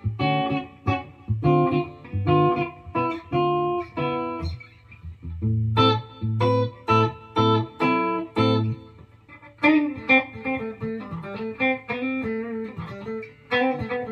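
Firefly FFLG SG-style electric guitar played through a small amp with a clean tone: picked single notes and chords, a short pause about five seconds in, then busier chords from about ten seconds in.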